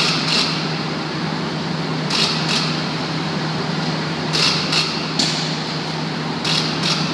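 Steady machinery drone with a low hum in a hot-dip galvanizing shop as a steel ladder is lowered into the molten zinc kettle. Short clusters of sharp hissing pulses come every couple of seconds, about a second in, in the middle and near the end.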